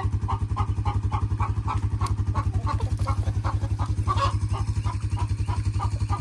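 A small engine running steadily with an even, rapid chugging pulse.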